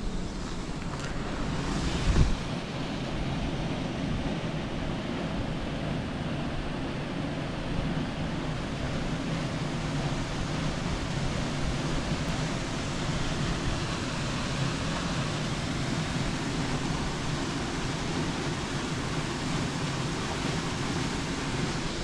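Steady outdoor rushing noise, even throughout, with one brief louder thump about two seconds in.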